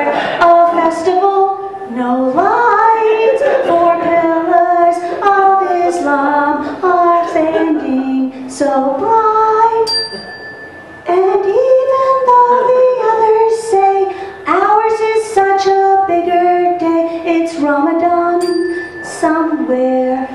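A woman singing a tune into a microphone. Twice, about halfway through and near the end, a brief high ringing tone sounds over the voice.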